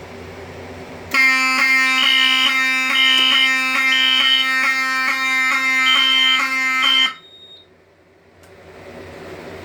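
Fire alarm horn sounding in walk test as the last detector is activated: a loud, steady buzzing tone starting about a second in, with a higher beep pulsing on and off alongside, both cutting off suddenly about six seconds later.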